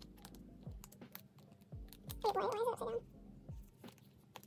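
Plastic binder sleeves and photocards tapping, clicking and rustling as they are handled. Under it is soft background music with a low beat about once a second, and a brief voice-like sound about halfway through.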